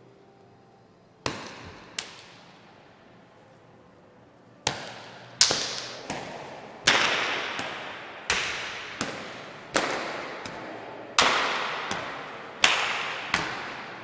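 A series of about fifteen sharp percussive cracks, each echoing off in a reverberant room: two near the start, a pause of a couple of seconds, then a steady run of hits roughly every three-quarters of a second.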